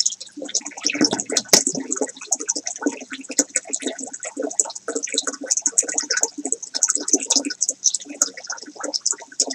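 Water splashing and gurgling as a pump-fed DIY tote filter pours its return flow into the tank, with a sharp knock about one and a half seconds in.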